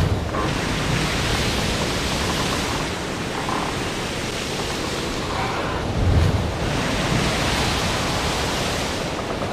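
Ocean waves: a steady rushing noise that swells twice, at the start and about six seconds in.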